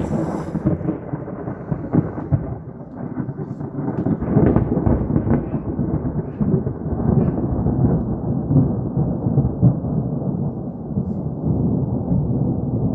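Long rolling thunder from an electrical storm: a continuous low rumble that swells and sags without a break, loudest right at the start.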